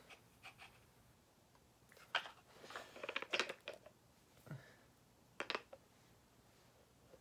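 Faint handling sounds in a small room: a few light clicks and rustles, with the most of them around three seconds in and one sharper click at about five and a half seconds.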